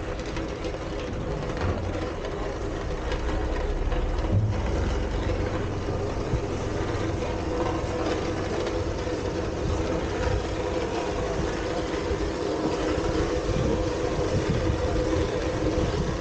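Engine of a rail-mounted crane running steadily under load as it hoists a tractor off a flat wagon, getting a little louder a few seconds in.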